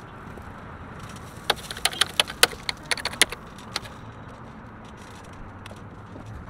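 Steady outdoor background noise with a quick run of about a dozen sharp clicks and rattles between about one and a half and four seconds in.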